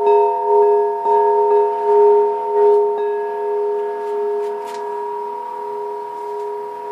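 Hanging metal bells struck with a ball-tipped mallet, ringing together in several steady overlapping tones with a slow wavering pulse. Fresh strikes land about a second in and near three seconds, and the ring then sustains, slowly fading.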